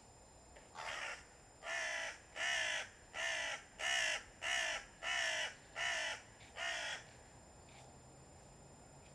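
Hooded crow giving a run of nine harsh caws, about one every three-quarters of a second, starting about a second in.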